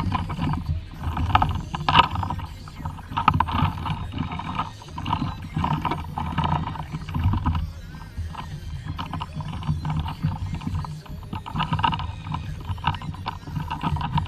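Water slapping and splashing irregularly against a fishing kayak's hull as it rocks on the sea.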